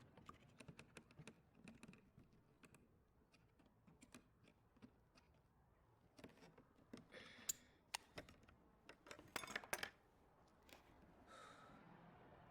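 Faint, irregular small clicks and taps, with a few short bursts of rustling handling noise in the middle.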